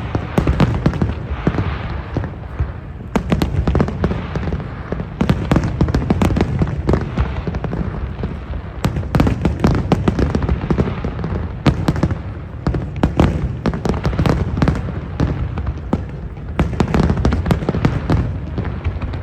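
Fireworks display: a dense, continuous barrage of bangs and crackles over a low rumble of booming shells.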